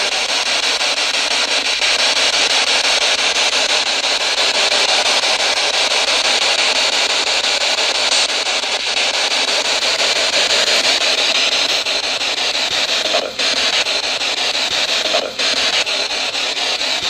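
Handheld ghost-hunting spirit box sweeping the radio band: a loud, steady rush of radio static, broken by a few short dropouts near the end.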